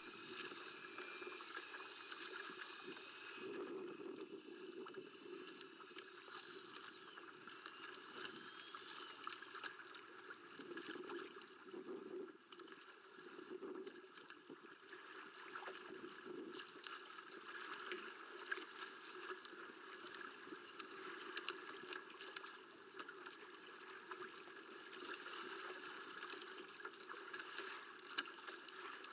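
Water sloshing and gurgling against a kayak's hull, with scattered small splashes.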